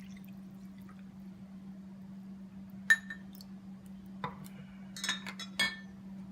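A utensil clinking against a bowl several times while ingredients are stirred together: one sharp ringing clink about three seconds in, then a cluster of lighter clinks. A steady low hum runs underneath.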